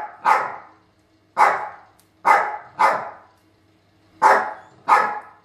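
Small house dogs barking: about six short, sharp barks with gaps of half a second to a second, the last four coming in two pairs.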